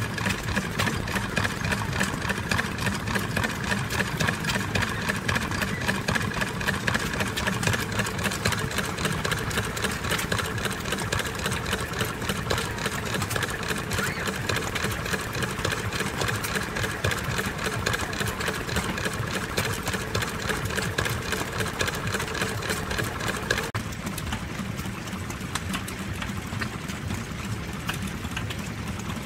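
A 1925 Lister Model A hopper-cooled single-cylinder stationary engine running steadily, with a fast mechanical clatter. About six seconds from the end the sound cuts to a quieter, different running engine.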